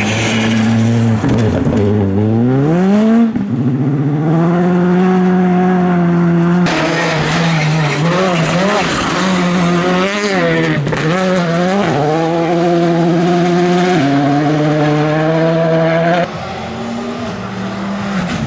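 Skoda Fabia R5 rally cars' turbocharged 1.6-litre four-cylinder engines driven hard, the pitch climbing and dropping with throttle and gear changes. The sound switches abruptly between cars several times, about 3, 7, 14 and 16 seconds in.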